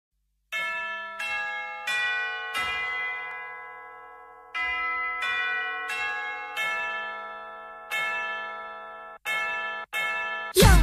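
Background music: a slow melody of struck bell-like notes, each ringing out and fading, with a few notes clustered and a long fade near the middle. Louder music with sliding pitches cuts in near the end.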